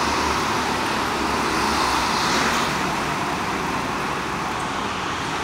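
Several go-kart engines running on an indoor track, blending into a steady noisy drone that swells a little about two seconds in as karts pass closer.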